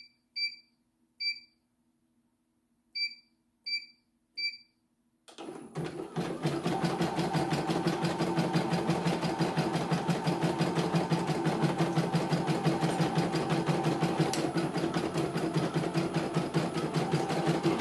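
CNY E900 embroidery machine: six short beeps from its touch-panel buttons, then about five seconds in the machine starts stitching with a fast, steady, even rhythm, run at its slow speed setting.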